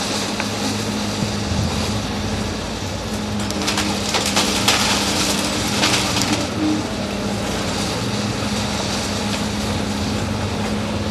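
Excavator's diesel engine running steadily while its grapple tears into a brick building, with a burst of crunching and cracking of breaking brick and timber between about three and a half and six and a half seconds in.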